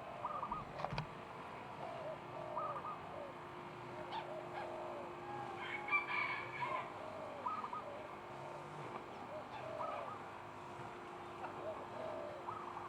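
Many birds in a walk-through aviary calling, short arched calls repeating over and over, with one louder, drawn-out call about six seconds in.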